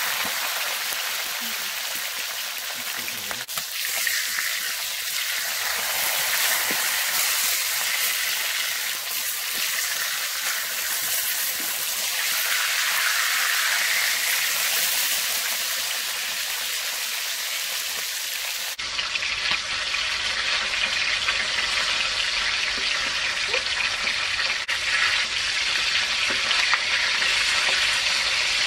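Whole fish frying in hot oil in a steel wok, with a steady sizzle. A wooden spatula stirs and turns them in the pan.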